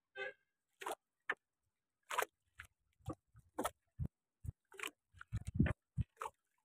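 Wet nylon gill net being hauled by hand over the side of a small boat: irregular short crunching, dripping noises, about one or two a second, with a few dull knocks on the hull from about four seconds in.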